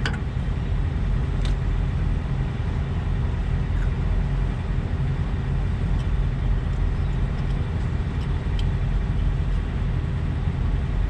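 Steady low rumble of idling diesel truck engines, with a faint constant hum and a few light clicks.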